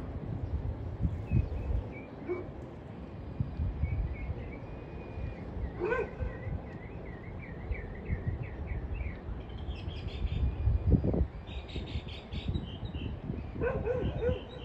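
Small birds calling in several runs of quick repeated chirps, over a constant low rumbling noise.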